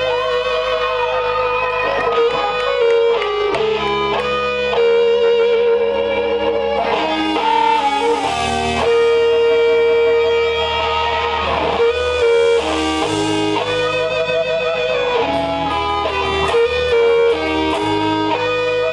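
Live rock band playing an instrumental passage: electric guitars hold long sustained notes, some bent and wavering, over a bass guitar line that shifts note every second or two.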